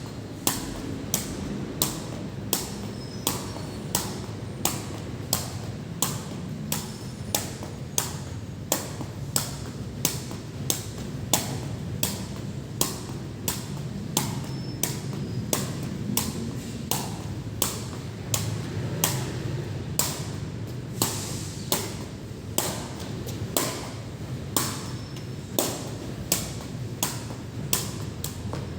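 Rainwater dripping steadily onto a hard surface, each drop a sharp tap, about one and a half drops a second, over a steady low background noise.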